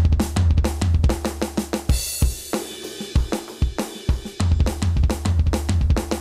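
Electronic drum kit played fast: repeated Herta fills (a three-note hybrid rudiment) run around the snare and toms with rapid bass drum strokes, and a cymbal crash about two seconds in.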